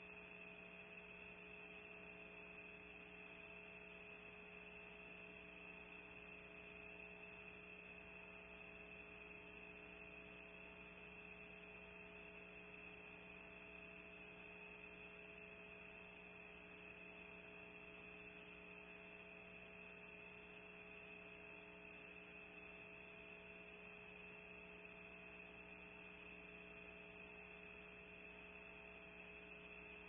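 Near silence apart from a steady electrical hum in a nest-cam audio feed: several unchanging tones with a thin high whine on top, over faint hiss.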